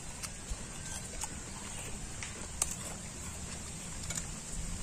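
Quiet eating sounds: a few small clicks and light rustles from hands picking at food on a sheet, the sharpest click about halfway through, over a steady low rumble.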